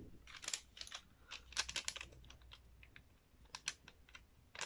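Coloured paper being folded and creased by hand: faint, scattered crisp clicks and rustles as a square sheet is folded in half corner to corner into a triangle.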